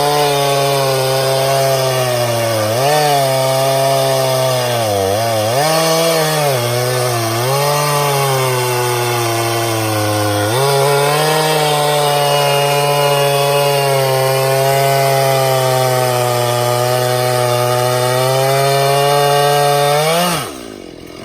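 Stihl MS391 two-stroke chainsaw running at full throttle while cutting into a hickory trunk, its engine pitch dipping several times as the chain loads up in the wood. Near the end the revs fall sharply and it goes much quieter as the throttle is let off.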